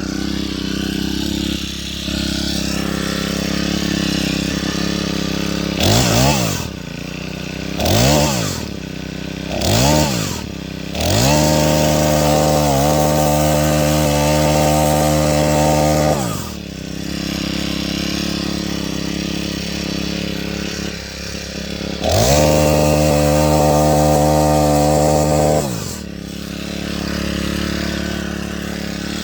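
Senix four-stroke gas chainsaw on its first run: it idles steadily, is blipped up and down three times about six seconds in, then held at full throttle for about five seconds and let back to idle. It is run up to full throttle again for about four seconds near the end before settling back to idle.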